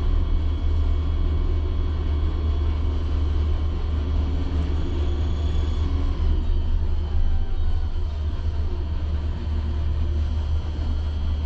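Liebherr tower crane running as it raises its jib under a 6.5-tonne load, heard in the operator's cab: a steady low rumble with a faint whine that drops in pitch about six seconds in.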